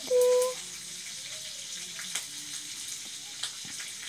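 A cat mouthing and chewing at a cloth, with scattered soft wet clicks over a steady hiss.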